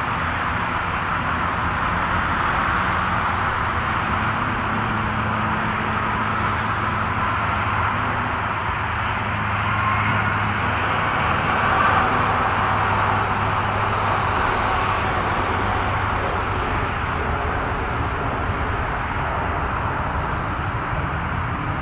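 WestJet Boeing 737's CFM56 turbofan engines running at low taxi power as the jet lines up on the runway: a steady low hum under a broad rushing hiss, swelling slightly about halfway through.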